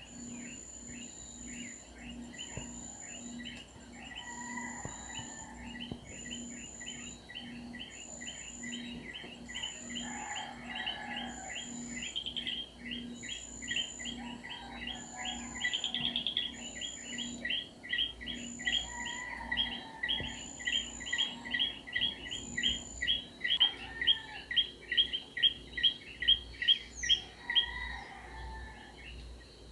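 Outdoor animal calls: a fast, even series of chirps, about two to three a second, louder near the end before stopping, over a thin high tone that pulses on and off about once a second.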